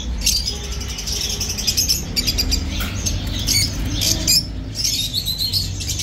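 Many small caged birds chirping and squawking together, a dense, continuous run of short high chirps.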